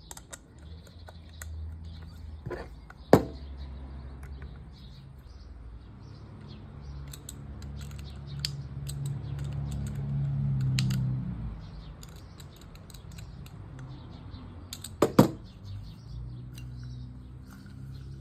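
Small metallic clicks and two sharp knocks from a Penn fishing reel and its parts being handled during cleaning, over a low steady hum that swells about halfway through.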